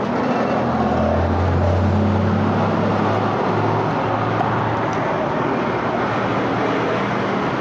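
Motor traffic on the street: a vehicle engine running close by, its low hum strongest in the first few seconds, over a steady wash of road noise.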